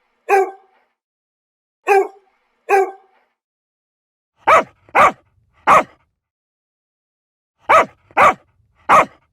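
Dog barking in short single barks: three spaced barks, then two quicker runs of three louder, deeper barks.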